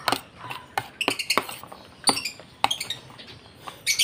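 Metal spoon tapping and scraping against plastic bowls and feeding cups while soft food for pet birds is scooped and spooned out: a series of irregular sharp clinks.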